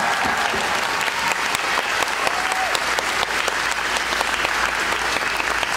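Audience applauding: a dense, steady patter of many hands clapping, with a voice or two faintly over it.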